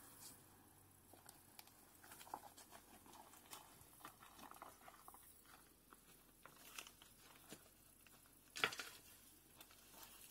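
Faint rustling and crackling of dry brush and plant stems as someone moves through dense weeds, with scattered small snaps and one louder crack about eight and a half seconds in.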